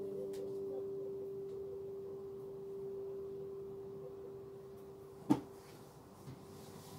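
An acoustic guitar note ringing on and slowly fading away. A single sharp knock comes about five seconds in.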